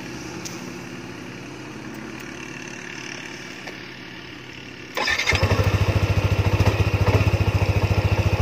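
Yamaha NMAX scooter's single-cylinder engine being started about five seconds in, catching at once and settling into a steady pulsing idle.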